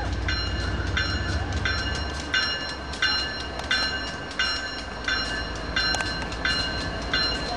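Freight train rumbling low, easing off about two seconds in, under a railroad warning bell ringing steadily about one and a half strokes a second.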